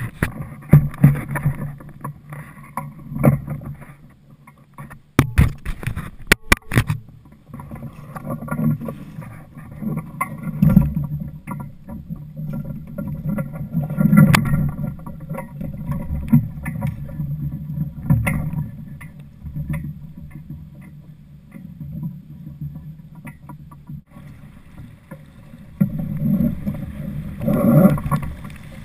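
Water sloshing and slapping against the hull of a Laser II sailing dinghy, rising and falling unevenly, with a run of sharp knocks about five to seven seconds in.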